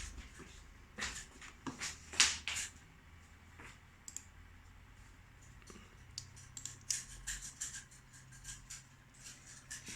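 Scattered clicks and taps on a Sony Vaio laptop's controls: a few about one to two and a half seconds in, then a quicker run of them in the last three seconds.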